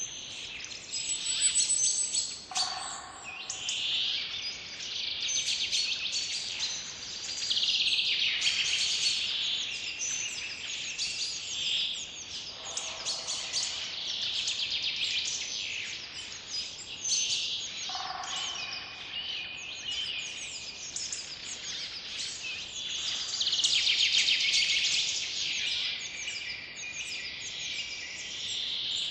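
Several songbirds chirping and trilling over one another without pause, with a few lower-pitched calls among them.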